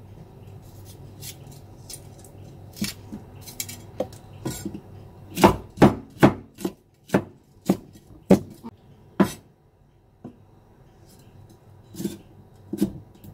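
Chinese cleaver chopping chilies on a thick wooden chopping block, each stroke a sharp knock of the blade on the wood. Light, scattered cuts at first, then a run of heavy chops about two a second in the middle, a pause, and a few more chops near the end.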